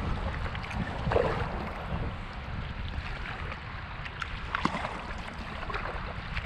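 Kayak out on the water: irregular small splashes and drips against a steady low rumble of wind on the microphone.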